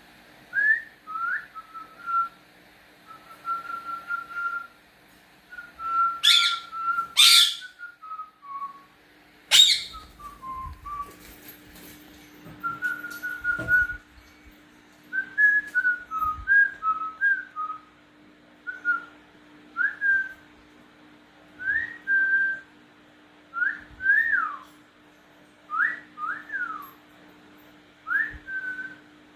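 Whistling: a long series of short, clear whistled notes, many gliding up or down and often coming in pairs, with pauses between phrases. A few loud, sharp, harsh sounds break in about six to seven seconds in and again near ten seconds.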